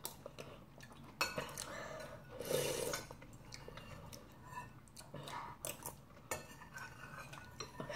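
Quiet eating of noodle soup: metal spoons and a fork clicking against ceramic bowls, with a soft slurp about two and a half seconds in.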